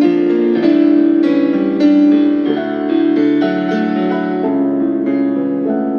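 Slow piano music for a ballet barre plié exercise, with held notes and chords that change about once a second.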